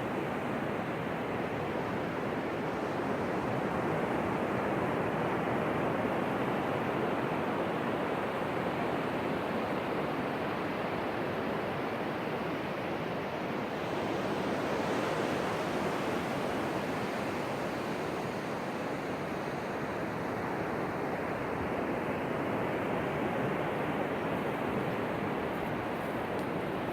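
Ocean surf washing onto a beach: a steady rush of breaking waves that swells and eases gently over several seconds.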